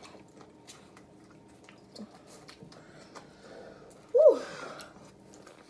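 Faint eating sounds, soft chewing and small clicks of food being handled. About four seconds in, someone makes one short, loud wordless vocal sound whose pitch rises and falls.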